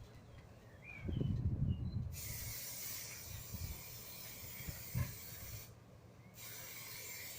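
Aerosol rattle can spraying paint in two long bursts of hiss, the first starting about two seconds in and the second after a short pause near the end. Before the spraying there is a louder low rumble of handling.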